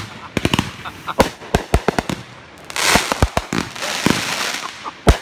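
Fireworks going off: an irregular string of sharp bangs, with a hissing, crackling stretch of about two seconds in the middle.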